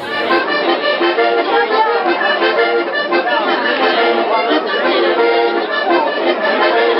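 Sardinian organetto, a diatonic button accordion, playing a lively dance tune for su ballu, the traditional Sardinian circle dance: chords and a running melody with a steady beat.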